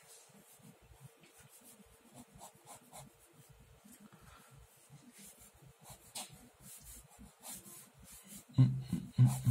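Pen sketching on paper: many short, quick scratching strokes, faint. Near the end a low voice comes in, louder than the strokes.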